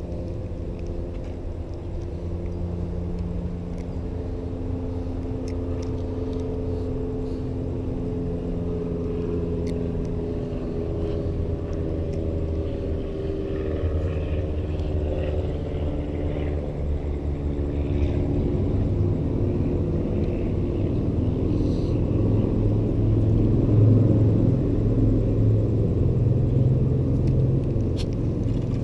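A steady low engine rumble whose pitch drifts slowly. It grows louder over the second half, with a few faint clicks on top.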